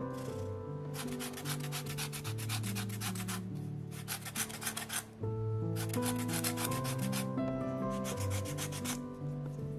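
Cork handle being sanded by hand: quick, dry rubbing strokes in two long spurts with a pause in the middle, over soft background music.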